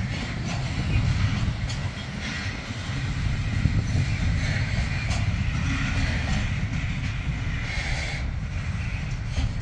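Container flat wagons of a long freight train rolling past, their wheels clicking and clattering over the rail joints over a steady low rumble.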